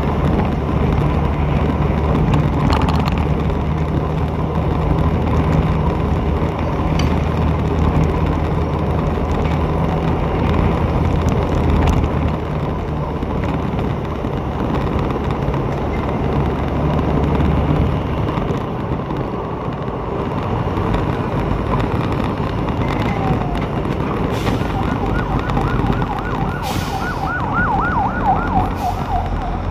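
Traffic and engine noise from riding along a city road, with a steady low hum that fades about two-thirds of the way through. Near the end a fast warbling siren sounds for about five seconds.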